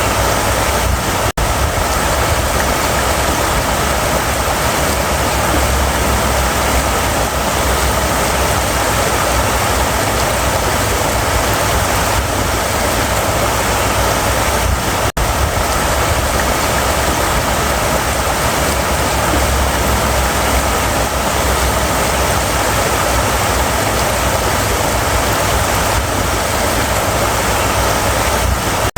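River water running steadily over rocks, an even rushing with no change, cut out for an instant twice.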